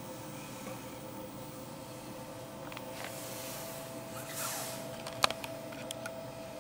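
Steady low room hum with a faint high whine. A soft rustle swells about three seconds in and fades, then a sharp click comes just after five seconds, followed by a few lighter ticks.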